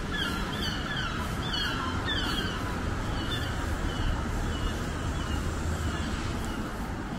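Urban street ambience: a steady low traffic rumble, over which a series of short falling chirps repeats about twice a second and fades out after a few seconds.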